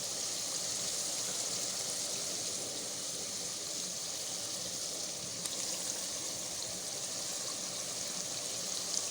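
Tomato stew frying in groundnut oil in a pot, a steady sizzle with a few small pops; the water has cooked off, so it is frying rather than boiling.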